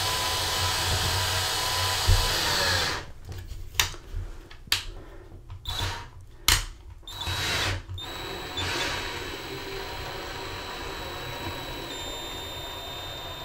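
Cordless screwdriver with a Phillips bit driving a plastic self-tapping drywall anchor into drywall: a steady motor whine for about three seconds, then a series of short stop-start bursts as the anchor is run in flush with the wall.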